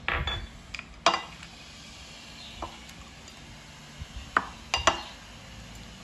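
Wooden spoon and fork tossing a shredded green papaya salad in a ceramic bowl, knocking against the bowl with about six sharp clacks. The loudest comes about a second in, and three come close together near the end.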